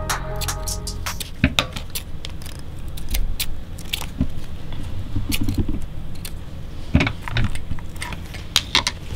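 Scissors snipping loose threads off a sewn seam, a string of irregular sharp snips and small metallic clicks from handling.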